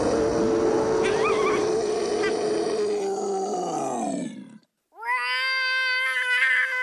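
Totoro, the giant animated forest spirit, gives a long rough roar that slides down in pitch and stops about four and a half seconds in. After a brief silence, a little girl roars back at him with a steady, high yell.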